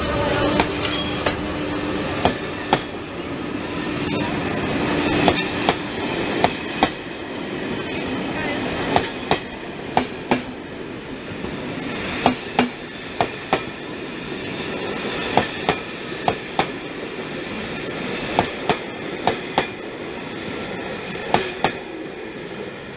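Passenger train passing at close range, a České dráhy class 362 electric locomotive followed by its coaches: a steady rolling rumble with a long, irregular run of sharp wheel clicks over rail joints and points.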